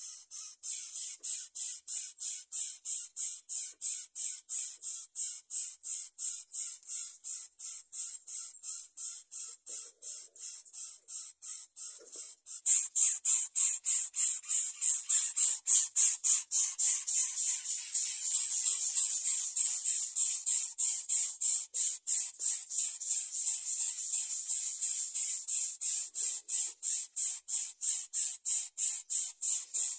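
Greater coucal nestlings begging for food: short hissing rasps repeated about three times a second without a break, getting louder about halfway through.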